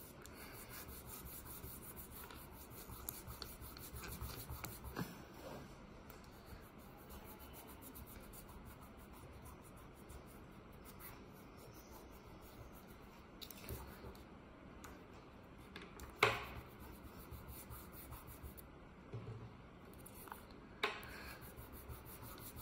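Fingertips rubbing and smudging oil pastel on paper, a faint soft scraping, stronger in the first few seconds. A few short knocks stand out, the loudest about sixteen seconds in.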